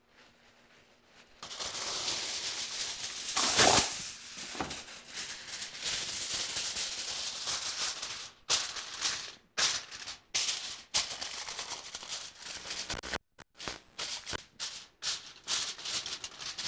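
Aluminium foil crackling and rustling as a sheet is handled and pressed down around the rim of a glass baking dish, with a louder crackle about three and a half seconds in and short, choppy crinkles in the second half.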